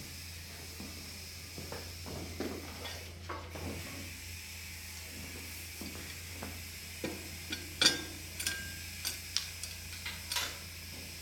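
Metal parts of a pallet jack's handle and pump head clinking and knocking as they are handled and fitted. There are faint knocks early on, then a run of about eight sharp clicks in the second half, one of them with a brief metallic ring, over a steady low hum.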